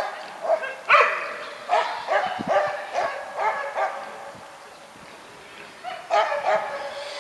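Dog barking and yelping in a quick series of high calls. The barking lets up for about a second and a half after the middle, then starts again near the end.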